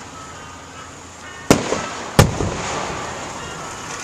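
Fireworks going off: two sharp, loud bangs, the first about a second and a half in and the second less than a second later, each trailing off in an echoing rumble.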